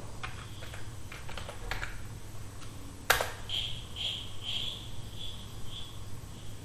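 Computer keyboard keys tapped a few times, then one sharper key click about three seconds in. A faint high-pitched whine pulses several times after it, over a low steady hum.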